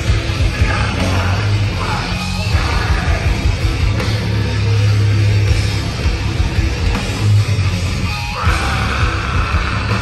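Metalcore band playing live: distorted electric guitar, drums and bass, heavy in the low end, with screamed vocals breaking in a couple of times.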